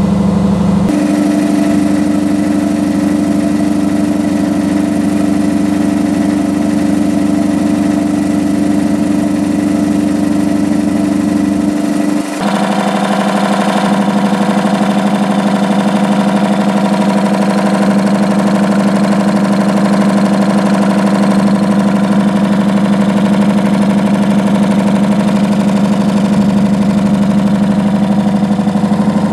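Yanmar SC30N-TF marine reciprocating air compressor running steadily with a rapid, even beat. Its tone shifts slightly about a second in and again after a brief dip about twelve seconds in.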